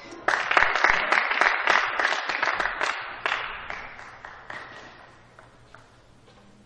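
Spectators applauding a won point in a table tennis match, starting a moment in and fading out over about four seconds.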